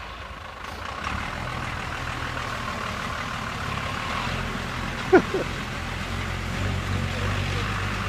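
Lifted Jeep Cherokee's engine revving under load as it drives through a slushy bog hole, its big tyres churning mud and slush. A brief, sharp high-pitched sound cuts in about five seconds in.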